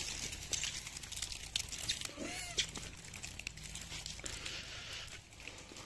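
Rhesus macaques cracking open and chewing peanuts in their shells: many small, irregular cracks and crunches. One monkey gives a short rising-and-falling call about two seconds in.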